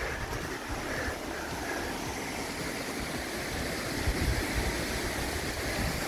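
Steady rushing of a tall waterfall, about a 70 m drop, heard on the approach and growing slightly louder, with low bumps of wind or handling on the microphone.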